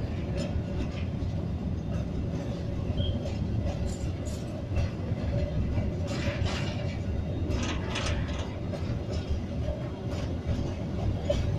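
Train running on the rails: a steady low rumble with scattered clanks and knocks from the wheels and cars.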